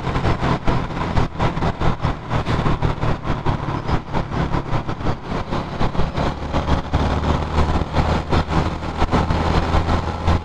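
Honda motorcycle engine running steadily while riding, under heavy wind noise rushing over the microphone. The engine note shifts lower about six seconds in.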